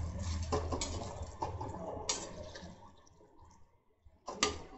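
Metal spatula stirring thick curry gravy in a metal kadai: wet squelching with light scrapes and clicks against the pan over a low hum, dying away after about two and a half seconds. Near the end, one sharp clink of the spatula on the pan.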